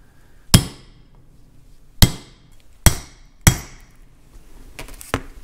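A hammer strikes a steel punch set on the Welsh plug of a Farmall M carburetor body, driving the plug in so the overflow drain media beneath it can be removed. There are four sharp metallic strikes at uneven intervals, each ringing briefly, then a lighter tap near the end.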